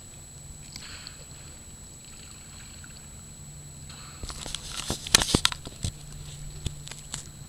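Water sloshing against a kayak, with a burst of splashing and sharp clicks and knocks about four seconds in, then a few scattered clicks, over a faint steady hum.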